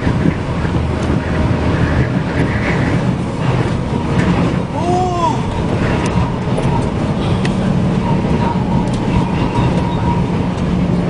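Steady road and engine noise of a vehicle on the move, as picked up by a dashcam, with a short rising-and-falling pitched tone about five seconds in.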